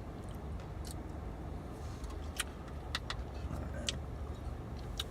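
Steady low engine or traffic rumble, with a handful of short, sharp light clicks scattered through it.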